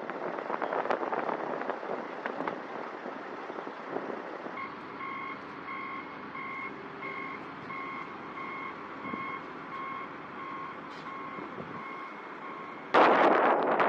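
Backup alarm of a John Deere wheel loader with pallet forks beeping steadily, about two and a half beeps a second, over the machine's running engine as it reverses. Near the end, loud wind rushing on the microphone drowns it out.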